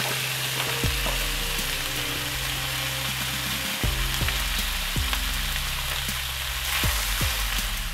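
Chopped raw bacon sizzling steadily in a stainless steel frying pan, just starting to fry.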